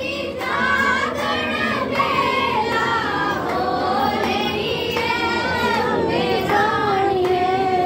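Women singing a devotional song together, with long wavering held notes.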